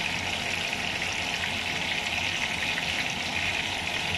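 Tuna, mixed vegetables and sweet corn sizzling steadily in a stainless steel frying pan on the stove.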